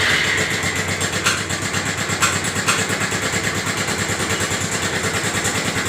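Bajaj Pulsar 180's single-cylinder four-stroke engine idling with a fast, even tak-tak ticking from the top end, the sign of a broken rocker arm.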